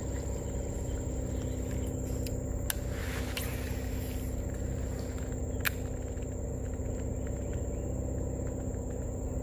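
A small engine running steadily with an even low drone, and two sharp clicks in the middle.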